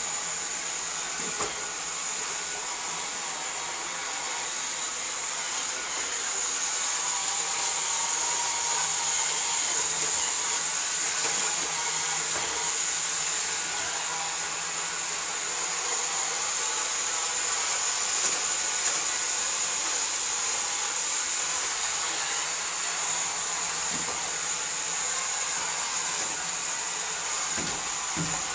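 Robot vacuum cleaner running: a steady, high-pitched whir from its suction motor and brushes, with a light click about a second in and another near the end.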